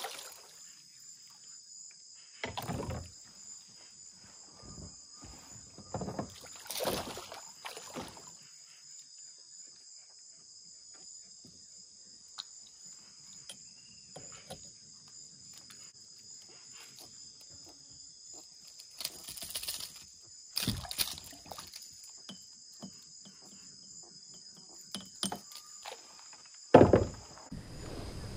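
Steady high-pitched insect chorus, like crickets or katydids, with a continuous two-toned hum, broken by scattered knocks and handling noises; the loudest is a sharp knock near the end.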